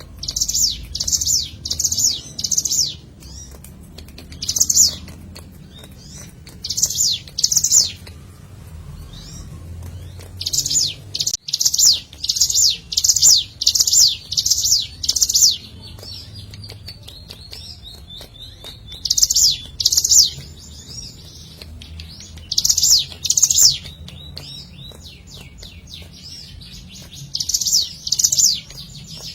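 Ciblek gunung (a mountain prinia) singing: runs of two to seven sharp, high-pitched notes, each quickly falling in pitch, repeated in bursts with short pauses between them.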